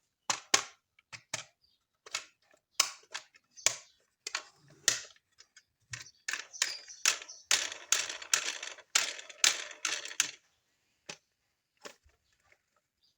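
Hard plastic toy parts being handled, with a quick series of sharp clicks and taps and a denser run of scraping and rattling in the middle.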